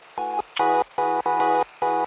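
Background music: a chord played in short, evenly repeated stabs, about two and a half a second.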